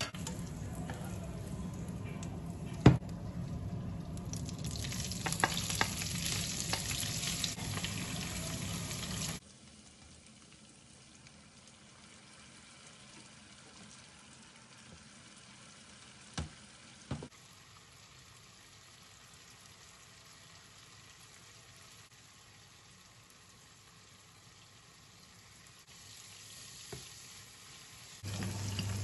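Carrot sticks and green beans sizzling in oil in a frying pan, stirred and lifted with a slotted turner, with a sharp knock of the utensil about three seconds in. The sizzle falls away abruptly about nine seconds in to a quieter frying hiss with a couple of light clicks.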